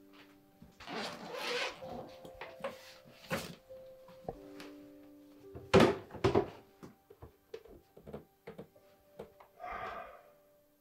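Desk and bag handling: rustling and knocks as a bag is gone through, a loud thunk about six seconds in as something is set down, then a string of light clicks and taps, over faint sustained music.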